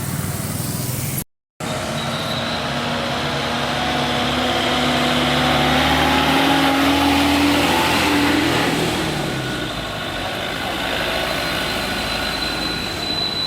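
A motor vehicle's engine running, its pitch rising slowly and then falling away. There is a brief dropout about a second in.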